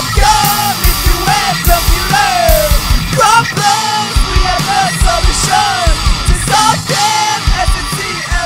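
Rock music with a loud, steady drum beat and a shouted, sung vocal line.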